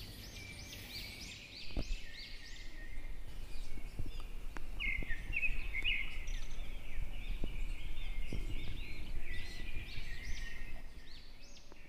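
Small birds chirping continuously in quick, short repeated chirps, busier from about two seconds in, with a few faint knocks.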